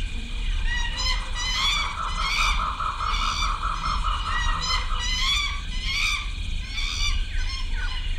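Repeated high squawking animal calls, a couple a second, starting about a second in, with a fast warbling trill for a few seconds near the start, over a steady low hum.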